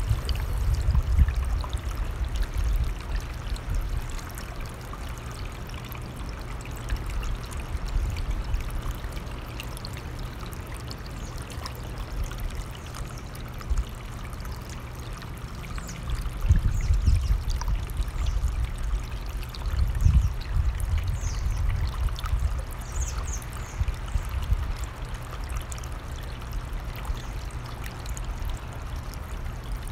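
Running stream, a steady rush of water, with low gusts of wind buffeting the microphone that swell a little past halfway and again about two-thirds through.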